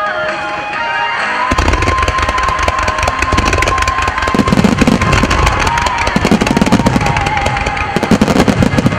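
A starmine barrage of fireworks. From about a second and a half in, rapid launches and bursts crack and pop in quick succession with low booms, over music with a sustained melody that plays throughout.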